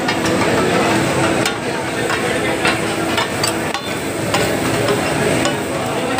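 Metal spatulas clacking and scraping irregularly as they chop katakat on a large flat griddle, over a steady sizzle of frying meat. This is the clatter that gives katakat its name.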